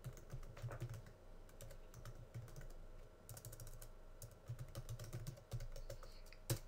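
Typing on a computer keyboard: a run of irregular, fairly faint key clicks, with one louder keystroke near the end.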